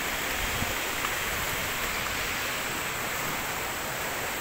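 Flowing river water rushing steadily.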